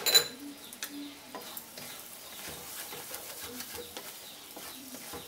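A wooden spatula knocks sharply against a kadai at the start, then scrapes and stirs a thick mixture of grated coconut and sugar that sizzles softly on low heat. The mixture is still a few minutes short of the sticky stage at which naru are shaped.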